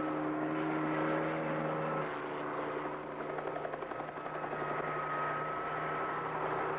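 Military helicopter running close by, a steady engine and rotor drone, briefly dipping in level about two and four seconds in.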